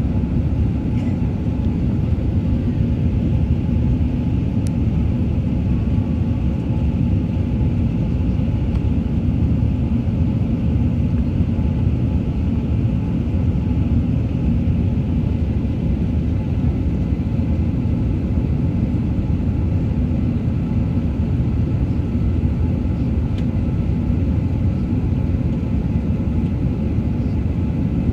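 Steady low rumble of jet engine and airflow noise heard inside the cabin of an Airbus A380-800 climbing out after takeoff, even throughout with a few faint steady tones above it.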